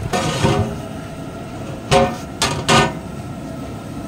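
Metal ladle knocking and scraping against a large cooking pot, three short ringing strokes about two seconds in, over a steady background hiss.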